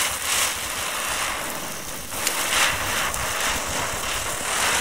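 Klasek Rotacek ground spinner firework burning: a loud, steady hiss of its spark spray, swelling a few times as it spins.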